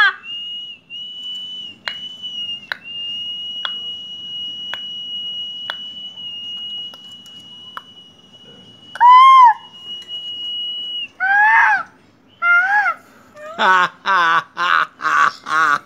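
A long steady high-pitched tone with scattered sharp clicks, then a few loud rising-and-falling calls from a caged common myna, and near the end a quick run of laughter.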